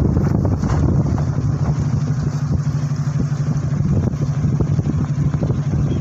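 A tugboat's diesel engines running with a steady low drone.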